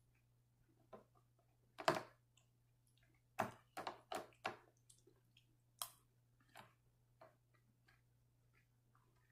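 Metal spoon clicking against a cereal bowl while scooping up cereal and milk: one loud click about two seconds in, then a quick run of four clicks a little later, and a few fainter ones near the end.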